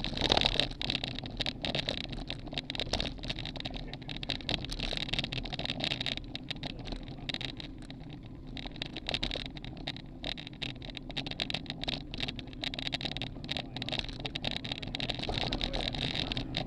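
Wind rushing over the microphone of a camera mounted on a moving road bicycle, with tyre and road noise and frequent small rattling clicks.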